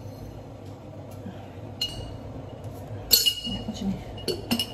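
Glass jar clinking as it is handled and its lid worked. There are a few clinks, and the loudest, with a short ring, comes just after three seconds in, followed by a couple of light knocks near the end.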